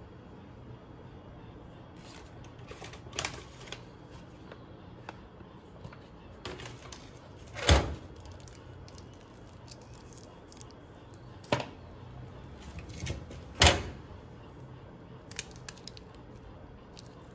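Handling noises in a small kitchen: plastic food packets being picked up and moved, with several sharp knocks and clicks, the loudest about eight seconds in, over a steady low hum.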